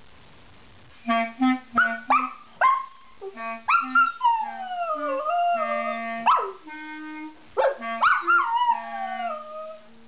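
A standard poodle howling along with a clarinet. After about a second, the clarinet plays short low notes while the dog gives a few quick yips and then two long howls that slide down in pitch.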